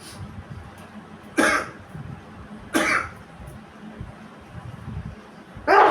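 A person coughing from nose and throat irritation after sniffing snuff and chili powder: two short, sharp coughs a little over a second apart, then a louder one near the end.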